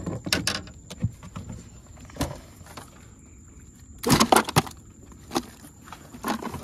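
Knocks and clunks of a plastic Coleman ice chest being handled on a boat, with a quick run of knocks about four seconds in as its lid is lifted.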